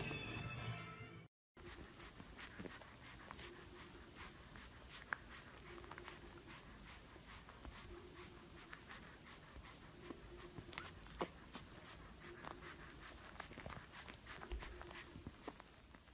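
Music fading out in the first second, then, after a brief silence, faint irregular clicking and smacking from a bulldog puppy sucking on a pacifier, with a faint low tone coming and going about once a second.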